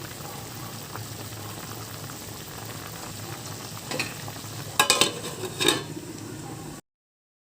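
Chicken curry cooking in a pan with a steady hiss, and a spoon stirring and scraping against the pan a few times midway through. The sound cuts off abruptly near the end.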